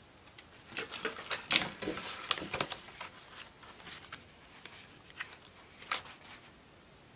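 Paper notebook inserts with cardstock covers being handled and shuffled: a quick run of rustles and light taps from about half a second to three seconds in, then one more brief rustle about six seconds in.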